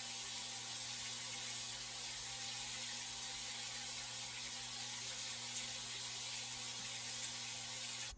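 A steady rushing noise, even and unchanging, with a faint low hum beneath it, cut off suddenly at the end.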